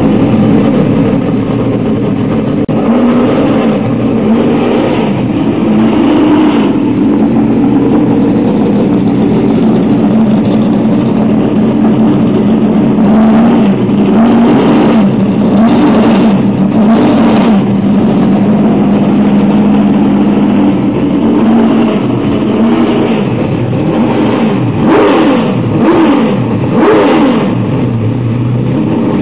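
Ford FPV GT's 5.4-litre Boss V8 idling, blipped on the throttle several times around the middle and again near the end.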